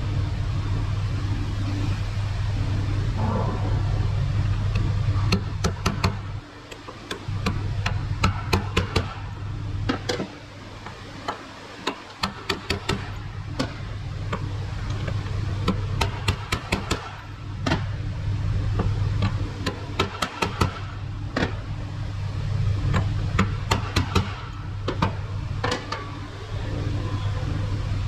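Sharp hammer taps on metal, coming in irregular quick clusters, over a steady low hum.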